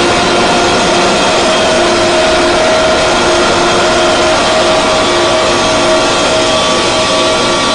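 Harsh noise drone music: a loud, dense wall of noise with a few held droning tones under it, one higher tone growing stronger about two-thirds of the way through.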